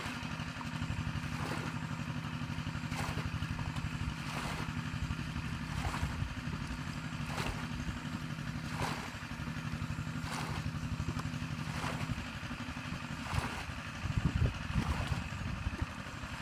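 Pond water being bailed with a plastic bucket, a splash about every second and a half as each bucketful is thrown out. Under it runs a steady low engine hum.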